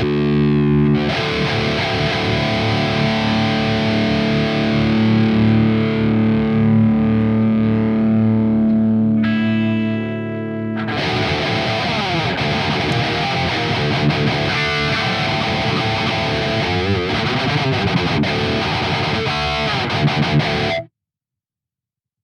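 Electric guitar played through distortion: a held, ringing chord for about the first ten seconds, then busier riffing for about ten more, cutting off suddenly near the end.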